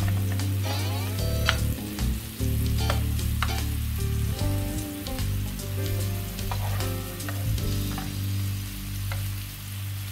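Steak and garlic sizzling on a hot flat-top griddle, with many small crackling pops.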